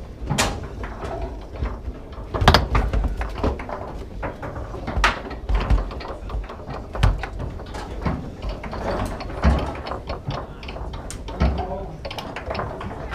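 Foosball table in fast play: the hard ball knocking against the plastic men and the table walls, with steel rods clacking and rattling. Several sharp, louder knocks stand out among quicker clicks.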